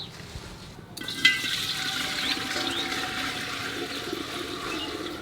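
Water rushing or pouring steadily, starting suddenly about a second in, with a few short bird chirps over it.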